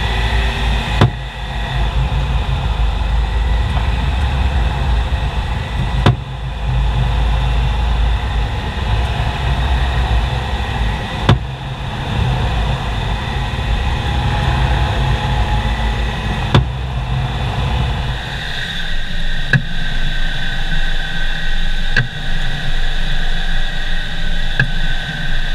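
Sharp single knocks from the front active anti-roll bar of a BMW X5 E70. The knocks come every few seconds over the car's steady running noise, and come more often in the last few seconds. This is a knock that shows up when turning, which two garages put down to a faulty front active sway bar.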